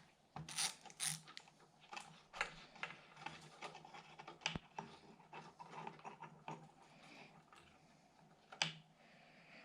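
Hand work stripping the window glass seals and trim off a Land Rover Discovery 1 body: irregular small clicks, taps and short scrapes, with one sharper click near the end.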